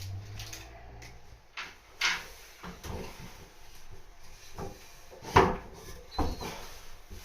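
Irregular knocks and clunks of loft-ladder parts and hardware being handled and set in place, about eight in all, the loudest about five and a half seconds in.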